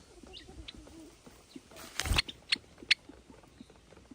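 Java sparrows giving a few short, high chip calls, with light scattered ticks and one soft thump about two seconds in.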